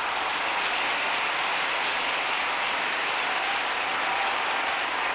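Large crowd applauding steadily, a dense even patter of many hands clapping.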